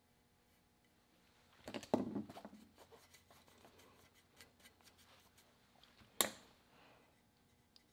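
Quiet handling noises of artist's brushes working a walnut gunstock on a wooden workbench: a flurry of light scrapes and taps about two seconds in, a few small ticks, and one sharp click about six seconds in.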